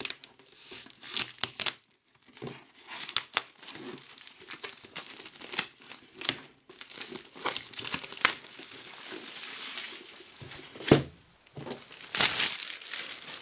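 Plastic shrink-wrap being slit with a knife and peeled off a cardboard box, crinkling and tearing in irregular crackles, with one sharp knock near the end.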